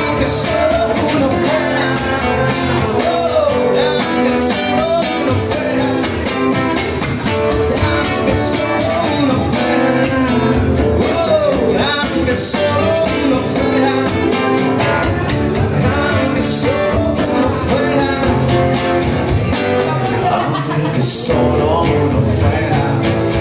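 Live acoustic guitar, strummed and picked, with a man's singing voice at times.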